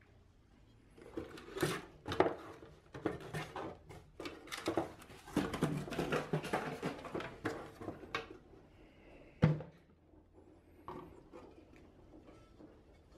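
Handling noise from unpacking an enamelled cast-iron Le Creuset braiser: cardboard box flaps and packaging rustling, with the heavy pot and lid knocking as they are lifted out. One sharp knock stands out about nine and a half seconds in, followed by a few softer taps.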